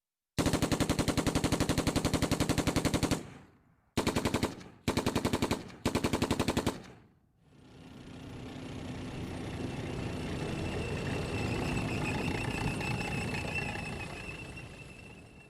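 Machine-gun fire: a long burst of rapid, evenly spaced shots, then three short bursts about a second apart. Then a noisy rush swells over several seconds and dies away, like something passing by.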